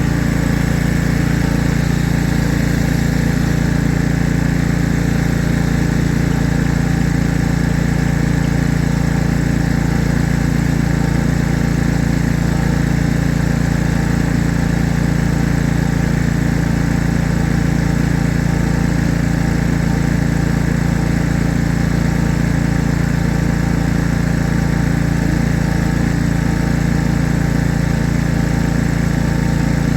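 An engine running steadily at constant speed, with an even fast pulsing.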